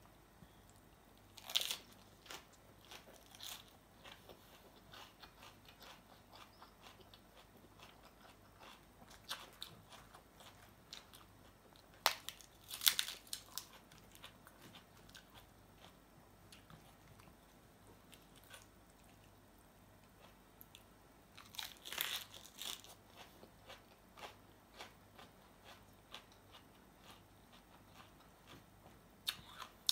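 Close-up eating sounds: crisp bites into a lettuce-wrapped cucumber salad, with soft wet chewing between them. A few sharp crunches stand out, about a second and a half in, around twelve to thirteen seconds, around twenty-two seconds and near the end.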